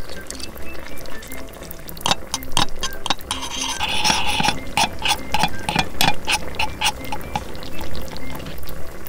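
A small metal spoon stirring a milky cheese sauce in a tiny stainless-steel pan: wet squelching with many quick clicks and scrapes of metal on metal, starting about two seconds in, over soft background music.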